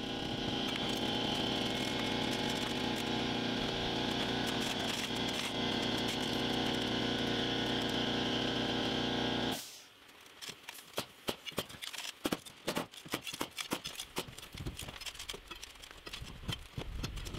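Pneumatic air hammer running steadily while breaking apart a mortar-filled concrete block wall, then cutting off abruptly a little over halfway through. After it stops, irregular knocks and clicks follow.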